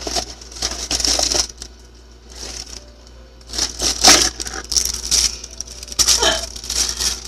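Clear plastic packaging crinkling and rustling in irregular bursts as it is handled and unwrapped.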